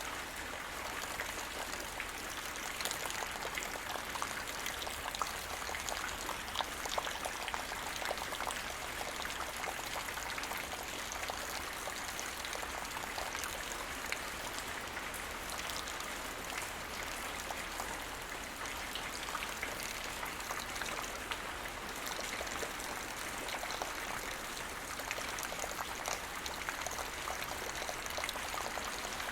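Light rain falling steadily, with many small drops pattering on the ground.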